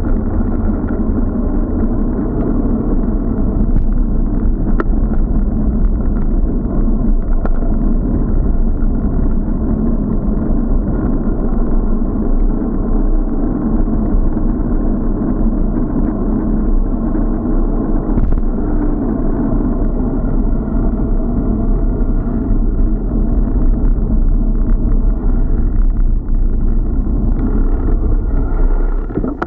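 Steady rumble of wind buffeting and road vibration picked up by an action camera's microphone as a bicycle rides along a street.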